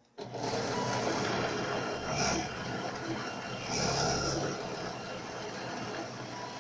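Benchtop drill press motor running steadily, starting abruptly, while it drills a row of holes in a wooden board on a homemade CNC rig; the sound swells twice, about two and four seconds in, as the bit bores into the wood.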